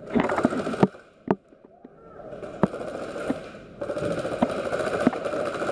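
Airsoft guns firing: rattling bursts of rapid full-auto fire at the start and again from about four seconds in, with single sharp snaps of shots or BB hits in between.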